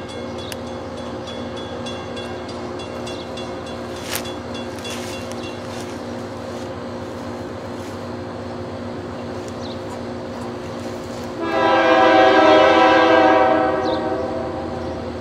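Diesel locomotive running steadily. Its air horn sounds one long, steady blast starting about eleven seconds in and lasting around two and a half seconds.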